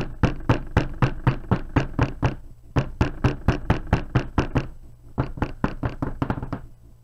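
Wooden loaf soap mould full of fresh soap batter being rapped down on a table over and over, about four knocks a second, to tap out air bubbles. There is a short pause about four and a half seconds in, then another run of knocks.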